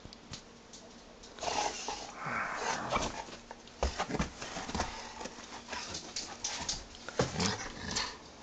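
A dog making small vocal sounds while it moves about on sofa cushions and is petted, with irregular rustling and soft knocks.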